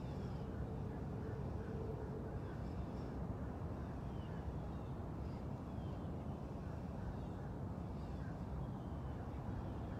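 Outdoor background of a steady low rumble with faint, scattered bird chirps.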